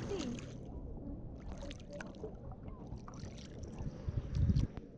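Seawater sloshing and splashing against a camera held at the water's surface, with a low rumble that swells about four and a half seconds in.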